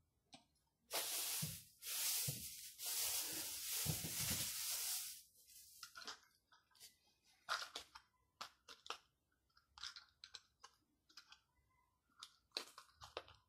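A crinkling, crunching rustle lasting about four seconds, then scattered light clicks and taps of things being handled.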